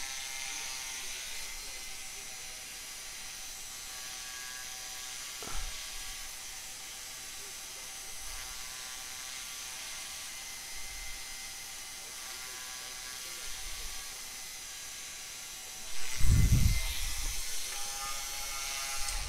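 Small rotary engraving tool fitted with a diamond burr, running steadily with a faint whine. There is a short click about five seconds in and dull bumps near the end.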